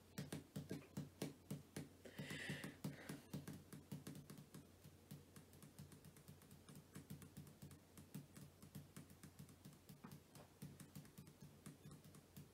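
Quiet, rapid light clicks of typing, going on steadily with small pauses, while a place name is searched for.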